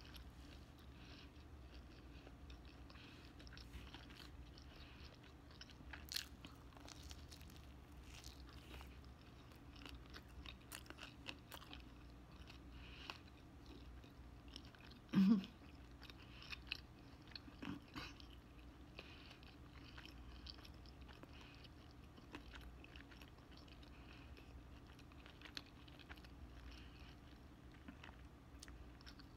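A person chewing pizza close to the microphone: faint wet smacking and soft crunches, with a short hum of the voice about halfway through.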